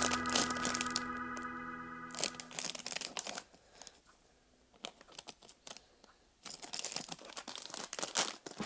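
Held music chords fading out, followed by scattered crinkling and crackling noises with a near-silent pause in the middle.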